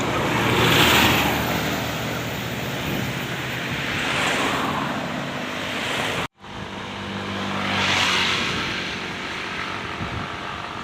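Road traffic passing close by: three vehicles go by in turn, each a swelling rush of engine and tyre noise over a steady engine hum. The sound cuts out abruptly for a moment about six seconds in.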